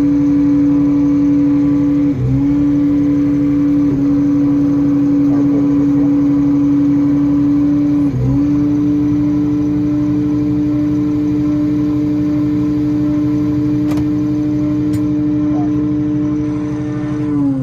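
A heavy harvest-machine diesel engine running steadily under load, with a strong droning pitch that dips briefly and recovers twice, about two seconds in and about eight seconds in.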